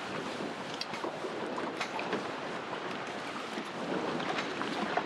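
Wind and waves around a small fishing boat: an even rushing noise, with a few light clicks and knocks on top.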